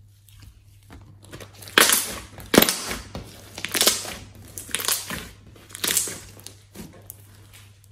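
Glossy red slime being squeezed and folded by hand, giving wet squishing sounds in about five irregular bursts, the loudest around two and two and a half seconds in.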